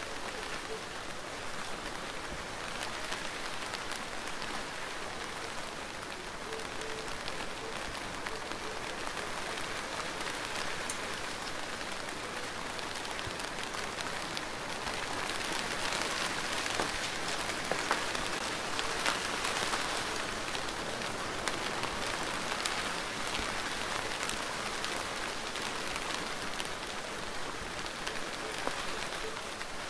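Steady rain falling, with many single drops tapping close by; it grows a little heavier about halfway through.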